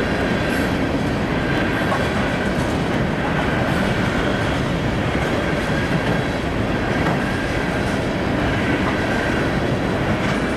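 Freight cars of a Reading & Northern manifest train rolling past at speed, a steady rumble with wheels clacking over the rails. A faint high tone comes and goes several times.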